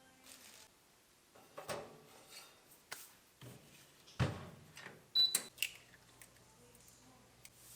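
Kitchen handling sounds: a scattered series of knocks and clatters of dishes and utensils being handled and set down, with a brief high ping about five seconds in.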